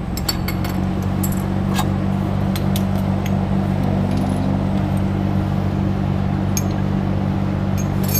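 Scattered light metallic clinks and jingles from exhaust parts and hand tools being handled during a muffler fitting, over a steady low hum.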